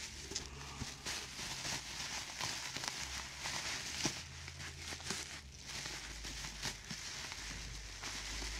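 Plastic bubble wrap crinkling and crackling as it is unwrapped by hand, a steady rustle full of small crackles.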